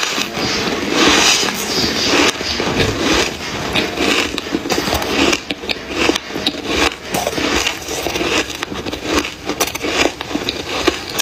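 Close-up crunching of freezer frost being chewed, with a metal spoon scraping through the loose frost in the bowl.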